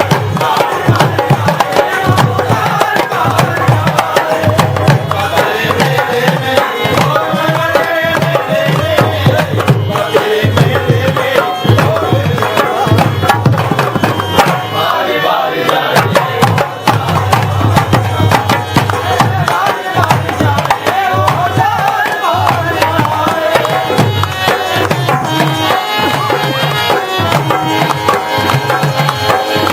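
Devotional bhajan music with tabla keeping a steady, continuous beat under a wavering melodic line.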